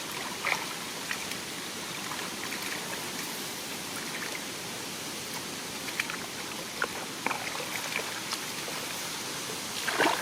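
Shallow water trickling and sloshing steadily, with small splashes now and then and a louder cluster of splashes near the end.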